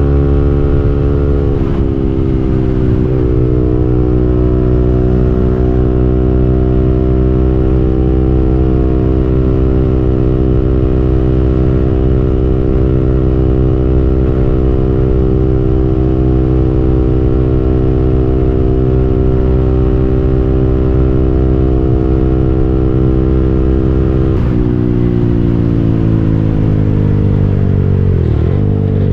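KTM Duke 200's single-cylinder engine running at a steady cruising pitch with wind rush, the pitch easing down slightly a couple of seconds in. About twenty-four seconds in the throttle is rolled off and the pitch falls steadily, with two quick dips near the end.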